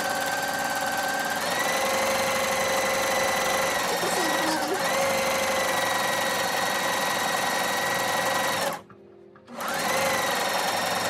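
Electric sewing machine running steadily, stitching coiled cotton clothesline rope. Its motor whine speeds up about a second and a half in and dips briefly near the middle. It stops for about half a second near the end, then starts again with a rising whine.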